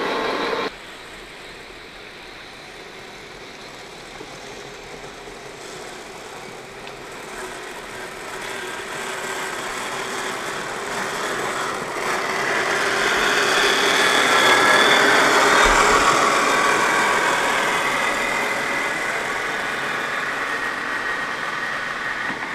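1/10-scale RC crawler truck (a Traxxas TRX-4 Jeep Cherokee pickup) driving over a dirt trail: its electric motor and gears whine, starting quiet, growing louder to a peak about two-thirds of the way through, then slowly fading as it drives away. Under a second in, a louder stretch of another RC truck's motor cuts off abruptly.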